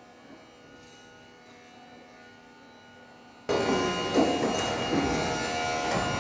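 Faint steady electrical hum, then about three and a half seconds in, background music cuts in suddenly and loudly, with sustained tones and sharp plucked or struck accents.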